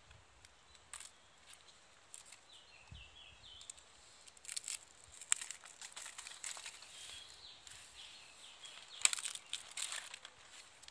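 Irregular scraping and crackling handling noises, with sharper rasps about five and nine seconds in. Faint rows of short chirps, likely a small bird, come through twice.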